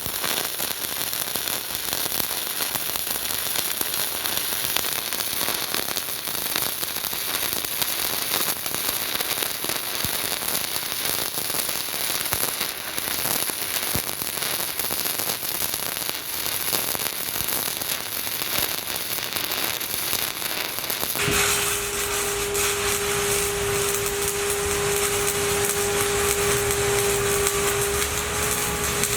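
Stick-welding arc crackling and sizzling steadily as a 4 mm 8010 rod runs the hot pass on steel pipe. About 21 seconds in, the crackle cuts off suddenly and a steady machine hum with one constant tone takes over.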